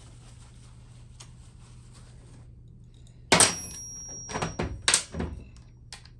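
Metal tools and parts clanking: one loud sharp knock with a brief ringing, then a quick run of lighter knocks.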